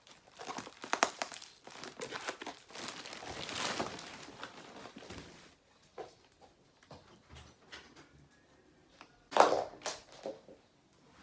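Parcel packaging crinkling and rustling as it is handled, dense for about five seconds, then quieter with a few light knocks, and one short, loud rustle about nine seconds in.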